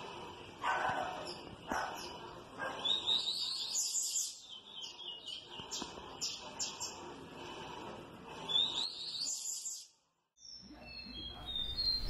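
White-browed meadowlark (polícia-inglesa-do-sul) singing: phrases of quick, high notes sweeping upward, repeated twice clearly. The song stops abruptly near the end.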